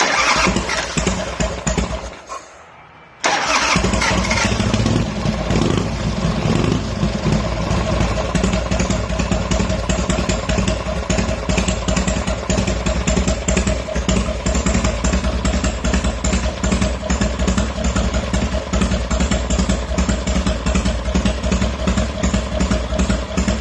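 Harley-Davidson Wide Glide's freshly rebuilt V-twin engine starting loudly. It runs for about two seconds and drops away, then fires again about three seconds in and keeps running steadily with a quick, even beat.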